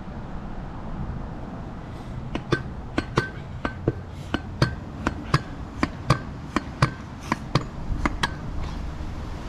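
Vurtego V3 pogo stick bouncing on the street: a run of sharp metallic clacks, about three a second, starting about two seconds in and stopping near the end. Wind rumbles on the microphone throughout.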